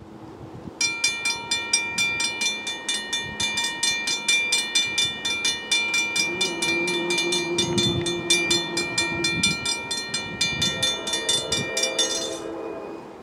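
Railroad grade-crossing bell ringing in rapid, evenly repeated strikes, starting about a second in and stopping near the end. A steady lower tone sounds for a few seconds midway.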